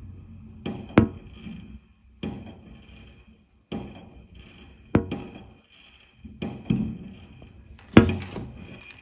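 Fireworks exploding: about eight sharp bangs at uneven intervals, each followed by a rumbling echo that dies away. The loudest come about a second in and near the end.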